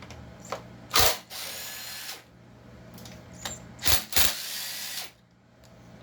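A power driver running in two short spurts, each about a second long, with a few small clicks between, as screws are backed out.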